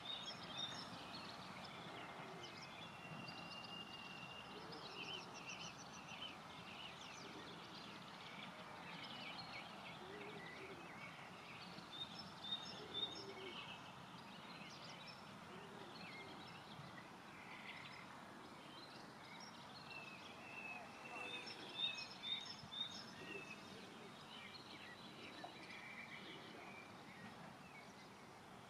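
Songbirds singing and chirping over a faint steady outdoor background noise, with short runs of quick repeated high notes coming back several times.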